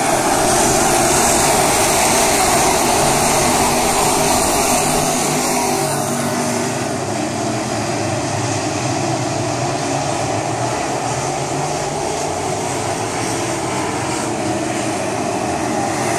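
A field of crate late model race cars running laps on a dirt oval, their V8 engines blending into one loud, steady drone.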